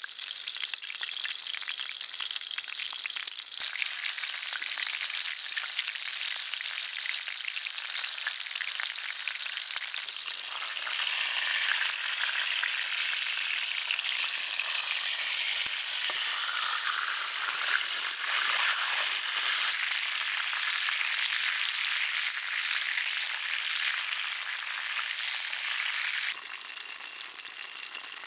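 Pork steaks frying in fat in a black pan over an open fire: a dense, steady sizzle and spatter. It grows louder a few seconds in and drops back a little near the end.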